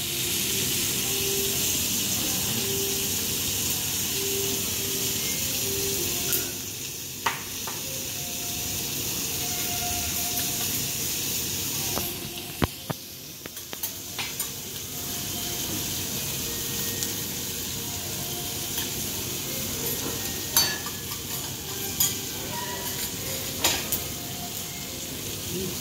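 Wagyu beef steaks sizzling on a hot teppanyaki steel griddle: a steady frying hiss, dipping briefly about halfway through. A few sharp clicks of the metal spatula against the griddle plate are scattered through it.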